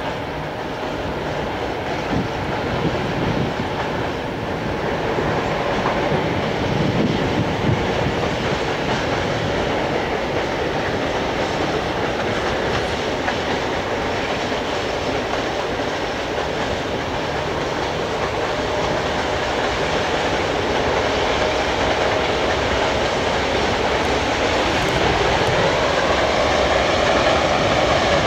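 Loaded freight train of grain hopper wagons rolling steadily across a concrete viaduct, the wheels making a continuous clickety-clack over the rail joints. Toward the end a swelling hum with slowly sweeping tones, like an aircraft passing overhead, grows over it.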